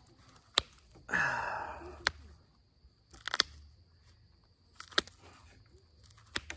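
Flintknapping on Onondaga chert: about five sharp stone-on-stone clicks spread out as flakes are struck or pressed off, with a rasping, crunching scrape about a second in that lasts about a second.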